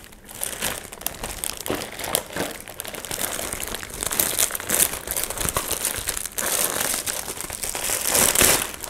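Clear plastic tote bag being opened and handled: irregular crinkling and rustling of stiff plastic, louder in stretches around the middle and near the end.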